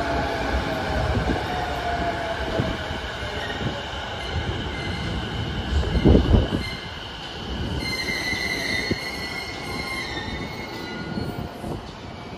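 JR E233-5000 series electric train braking into a platform: its traction motors' whine falls in pitch as it slows, and the brakes squeal as it draws to a stop. A brief dull thump sounds about six seconds in.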